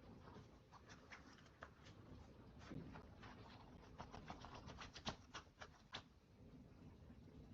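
Faint, irregular clicking and tapping, with a quick run of sharper clicks between about four and six seconds in.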